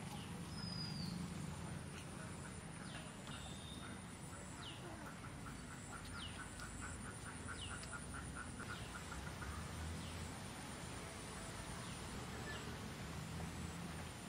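Outdoor ambience of birds: scattered short chirps, and in the middle a run of quick repeated calls at about four a second, over a steady high insect buzz and a low rumble.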